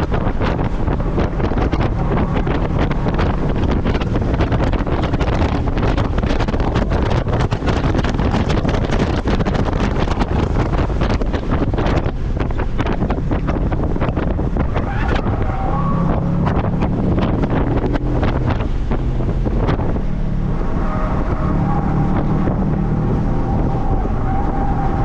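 Heavy wind buffeting on the microphone of a car at track speed, nearly burying the engine. About fifteen seconds in the buffeting eases and the Audi B7 RS4's 4.2-litre V8 comes through as a clear engine note.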